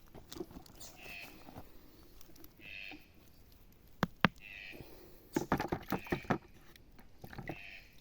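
Stones knocking and clicking against each other as rocks are handled: two sharp knocks about four seconds in, then a quick run of clicks a second later. A short high chirp recurs every couple of seconds.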